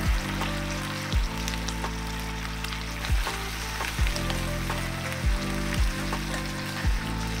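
Soy-sauce marinade poured into a hot pan of sliced beef and onions, sizzling as the liquid hits the pan, then stirred with wooden chopsticks. Background music with low steady tones and a soft drum beat runs underneath.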